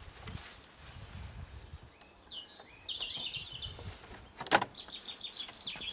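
Sharp metal click about four and a half seconds in, with a smaller one a second later, as a circlip is pressed onto the idler wheel spindle of a Garrard 3000 turntable. A bird chirps in quick runs in the background.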